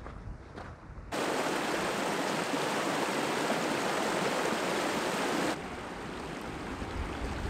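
Warnscale Beck, a rocky mountain stream, rushing in white water over boulders. It starts suddenly about a second in, and about two-thirds of the way through it drops to a softer, gentler flow.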